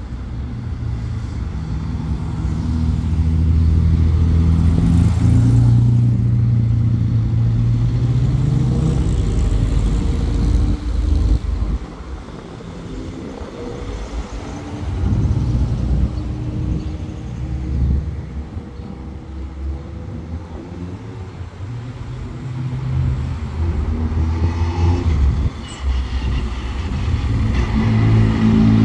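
Classic cars driving past one after another, their engines swelling and fading as each goes by, with one revving up near the end; a Ford Mustang fastback and a Ford Escort are among them.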